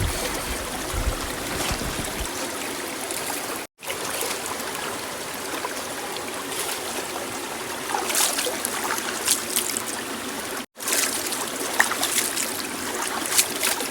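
Steady flowing water, like a stream or running trickle, with scattered small splashes and drips in the second half. The sound cuts out abruptly twice for a moment.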